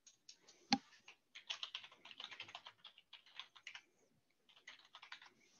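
Typing on a computer keyboard: one sharp click a little under a second in, then runs of quick keystrokes, pausing briefly about four seconds in before a last short run.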